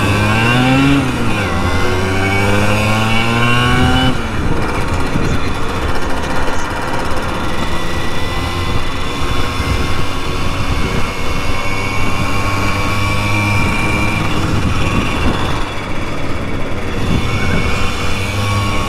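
Simson 50 cc two-stroke moped engine under way, rising in pitch as it accelerates for about four seconds, dropping sharply at a gear change, then running on at a steadier speed.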